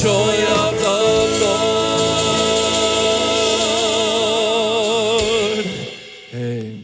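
Gospel worship band ending a song: a singer holds a long final note with vibrato over sustained band chords, and the music stops near the end.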